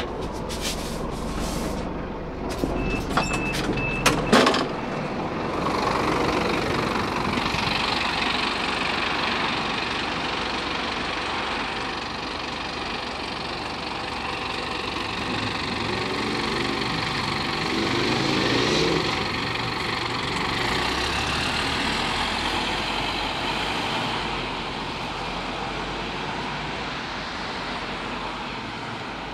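Scania CN270UB city bus's Scania DC9 diesel engine (270 hp) running at a stop, then rising in pitch and getting louder as the bus pulls away a little past halfway, easing off as it moves off down the street. Near the start, knocks and clatter and a short beep.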